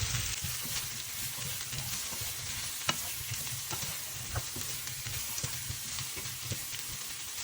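Potato pieces shallow-frying in hot oil in an open pan, about halfway cooked: a steady sizzle with a few sharp clicks, the loudest a little under three seconds in.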